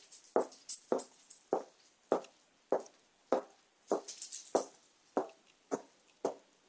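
Footsteps at a steady walking pace, about one every half second, each with a small metallic jingle, stopping about six seconds in.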